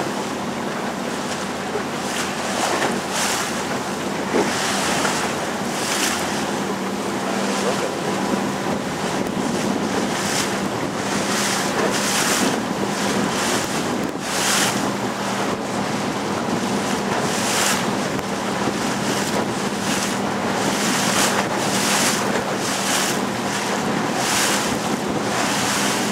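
A small motorboat under way: its motor runs steadily under a constant rush of water, with splashing surging every second or so. Wind buffets the microphone throughout.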